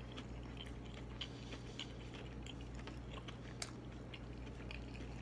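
A person chewing a mouthful of fried seafood deviled egg, with faint scattered mouth clicks over a low steady hum.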